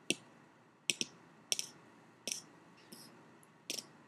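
A boy's mouth clicks, about six sharp single and double clicks spaced well apart. This is his tractor or machine-gun mouth noise done slowly, one click at a time.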